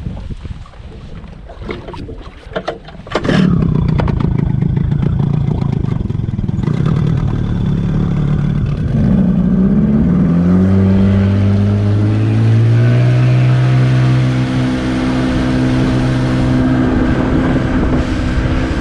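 A few knocks and clatter, then about three seconds in a tiller outboard motor comes up loud and runs; midway its note climbs as the boat is throttled up and gathers speed, then holds steady.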